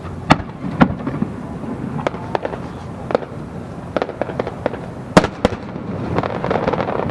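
Aerial fireworks shells bursting in quick succession: a string of sharp booms with echoing tails, two loud ones close together early on and two more about five seconds in, with lighter pops between.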